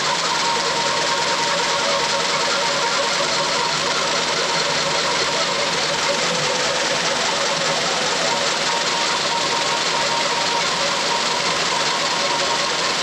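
Shop vacuum running with a steady whine, drawing aluminium chips out through the cylinder head's exhaust port, mixed with a cordless drill turning a fly cutter that cuts valve reliefs into the pistons of a 302 Ford small-block.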